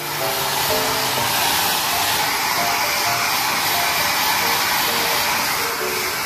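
Hair dryer blowing steadily on a labradoodle's curly coat, drying the dog after a shampoo.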